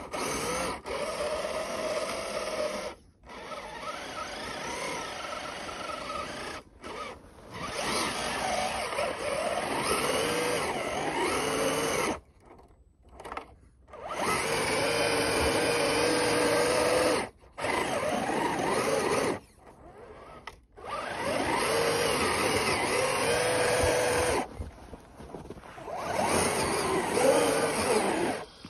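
RC off-road truck's electric motor and gears whining in bursts of throttle as it pushes through deep snow, the pitch rising and falling with speed and dropping away in several short pauses.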